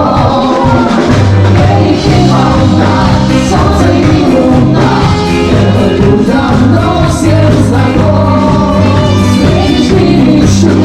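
Loud music: a song with a steady bass line and beat, with singing voices at times.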